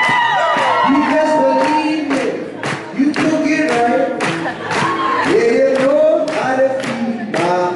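A male vocalist singing live into a microphone, his voice gliding and holding notes over a steady rhythmic beat.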